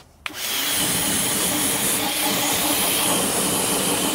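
Pressure washer gun spraying a steady high-pressure jet of water onto car exhaust tips, rinsing off wheel cleaner and loosened soot. The spray starts about a quarter second in and holds steady.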